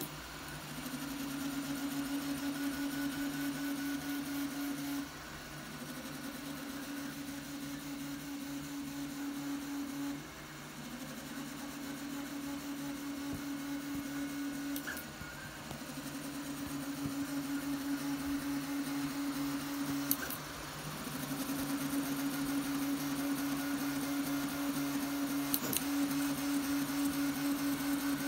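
RatRig V-Core 3 CoreXY 3D printer printing: its stepper motors give off a steady buzzing hum with a fast, busy texture that drops out briefly about every five seconds as the moves change. A steady fan whirr runs underneath.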